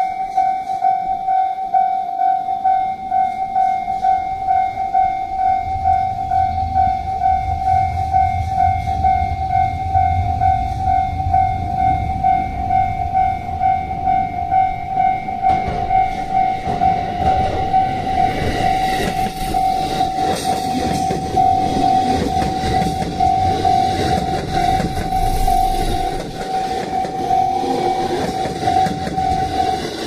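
Japanese level-crossing warning bell dinging quickly and evenly, about two to three strikes a second. A train's noise grows from about halfway through, and near the end a Haruka limited express electric train passes over the crossing with loud wheel and rail noise.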